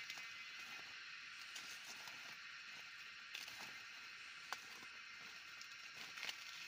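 Maize stalks and leaves being snapped and rustled by hand, with a few sharp cracks, the loudest about halfway through. Under them runs a steady high-pitched chorus of small calling animals.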